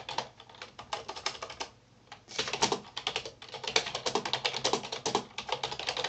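Rapid typing on a computer keyboard, a quick run of keystrokes with a short pause about two seconds in before it resumes.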